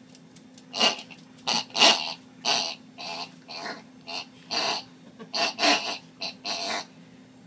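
A squeaky pig-shaped dog toy making a rapid, irregular string of short squeaky oinks as a miniature pinscher bites and chews it.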